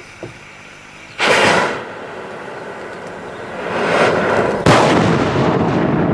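Two loud blasts from large firecrackers, about three and a half seconds apart, the second sharper and louder. Each is followed by a long rumbling echo that carries on after the second blast.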